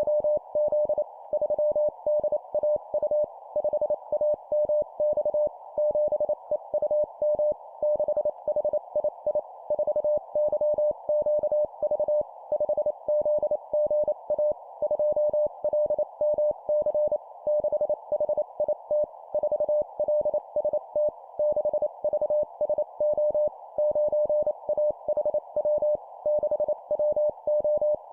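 Morse code (CW) tone of about 600 Hz keyed at 25 words per minute in rapid dots and dashes, sending four-character groups of a number followed by three letters, against a steady band of hiss.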